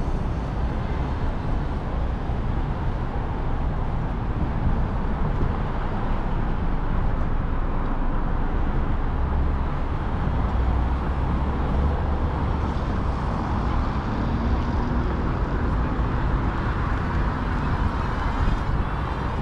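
Steady noise of road traffic on a busy downtown city street, with cars going by.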